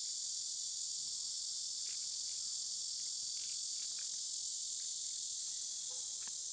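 Steady, high-pitched chirring of an insect chorus.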